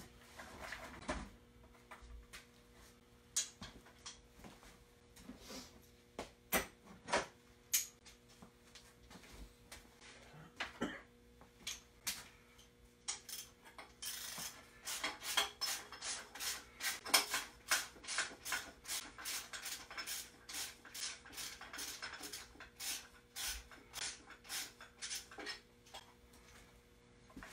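Hand tools working metal on a Ford 351 Cleveland V8's front accessory drive while the V-belt brackets and pulleys are unbolted. Scattered clinks and knocks come first, then a long run of rapid metallic clicks from about halfway through that lasts some ten seconds.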